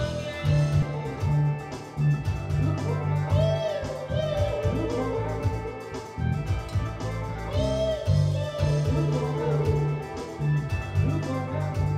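Band music: a bass guitar line under drum-kit hits and keyboard, with a wavering melody held on long notes about three and a half and seven and a half seconds in.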